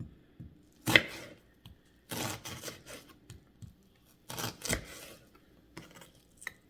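Knife chopping a yellow onion on a cutting board, in short irregular clusters of strokes; the loudest stroke comes about a second in.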